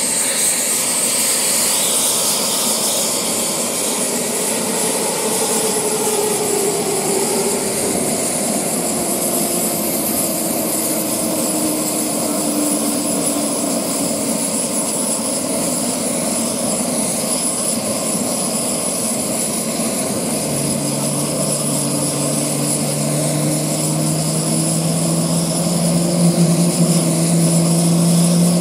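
Jet engines of F/A-18 Hornet fighters running on the flight line: a loud, steady high whine over lower tones that slowly slide in pitch. About two-thirds of the way through, a strong low tone comes in and creeps upward.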